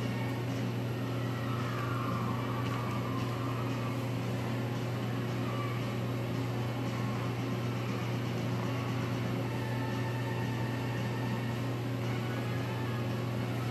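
Steady low machine hum of kitchen equipment, unchanging, over a faint hiss.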